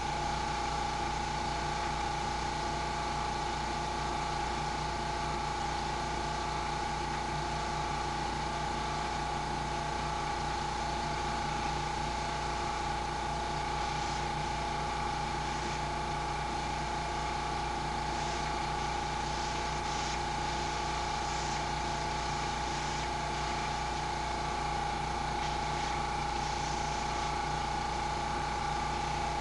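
Small air compressor for an airbrush running with a steady hum and hiss.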